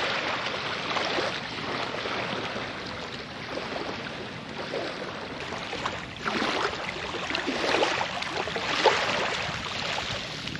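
Small waves lapping and washing on a shingle beach: a steady wash that swells briefly a couple of times.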